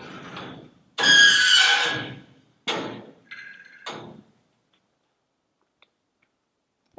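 Steel workshop door hardware being worked: a loud metal scrape with a squeal, then three shorter metallic scrapes and clunks, as the lever-operated bolt locks are tried out.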